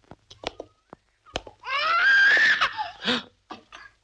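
A small child crying: a few faint clicks, then one long high-pitched wail with a sliding pitch starting about a second and a half in, followed by a shorter cry.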